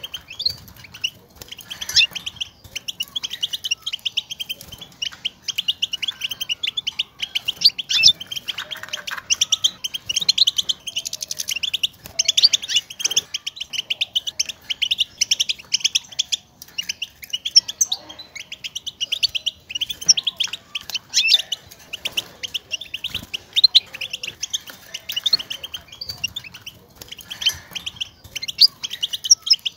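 European goldfinch twittering: a dense, unbroken run of quick high chirps. These are the contact calls goldfinches use to call to one another.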